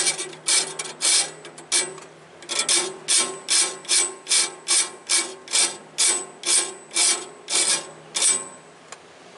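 Hand file rasping across a tooth of a Wood-Mizer bandsaw mill blade to sharpen it: even strokes about two to three a second, with a short pause about two seconds in, stopping near the end.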